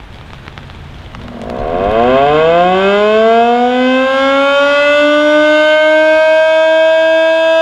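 Underpowered Federal Signal Model 2-240 electromechanical siren winding up from about a second and a half in, its pitch rising and levelling off into a loud, steady wail.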